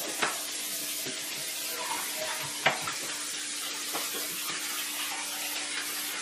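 A steady hiss with a faint low hum, broken by a few light clicks and knocks, the loudest about midway, from a knife and cupcake being handled on a countertop.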